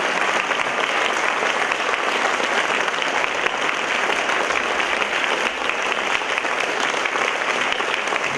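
Theatre audience applauding steadily, a dense even patter of many hands clapping.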